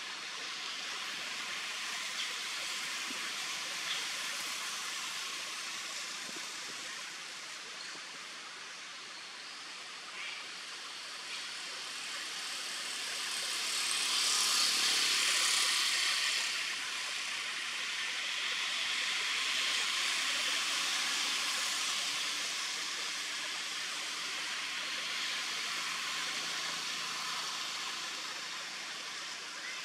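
Steady high hiss of forest ambience, swelling for a couple of seconds midway and then settling back.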